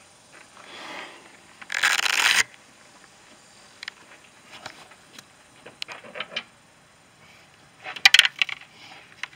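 Handling and tool noises in a car's engine bay. A brief rustling burst comes about two seconds in, then scattered light clicks, and near the end a quick cluster of sharp metallic clicks and clinks.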